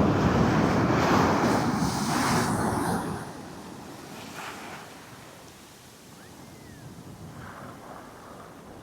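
Strong wind buffeting the microphone over breaking Caribbean surf: a loud rush for about the first three seconds, then it eases to a steadier, lower wash of surf and wind.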